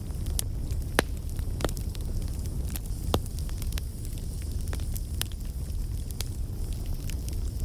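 Campfire burning: a steady low roar of flames with irregular sharp crackles and pops of burning wood, the loudest pops about a second in and just after three seconds.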